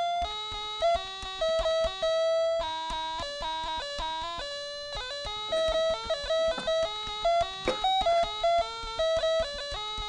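Background instrumental music: a melody of quick plucked guitar notes.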